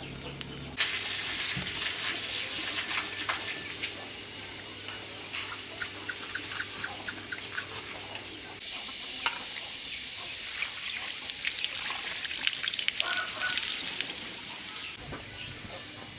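Water running and splashing, starting suddenly about a second in, with many small knocks and clinks mixed in, as when washing something under running water.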